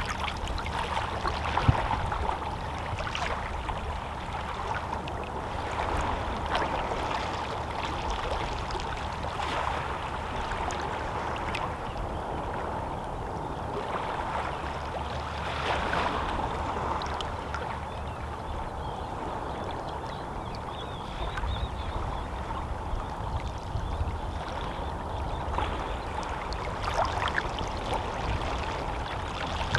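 Small, gentle sea waves lapping and sloshing irregularly against shoreline rocks, with one sharper splash about two seconds in.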